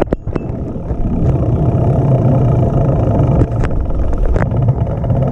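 Loud, steady rumble of wind buffeting the microphone while riding a bicycle, with a few sharp clicks near the start and again around the middle.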